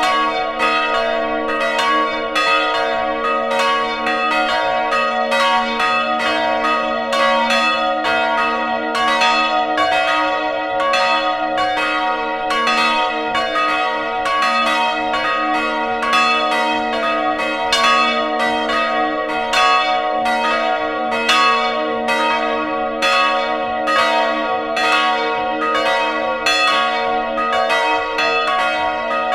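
Full peal of three swinging church bells, heard close up in the belfry. Their clappers strike in a dense, overlapping stream over steady low humming tones that ring on without a break.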